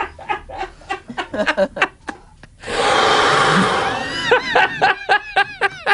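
People laughing helplessly in quick short bursts. About three seconds in, a long breathy hiss like an exhale lasts a second and a half, and then the laughing picks up again in rapid rising-and-falling bursts.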